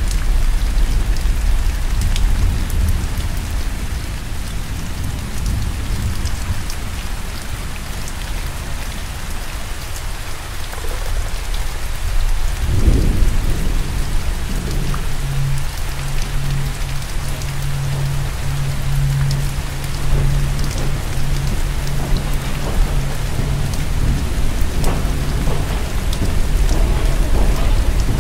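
Steady heavy rain with low rumbling thunder and a sudden swell of rumble about halfway through. A low steady hum comes in just after it and holds for about ten seconds.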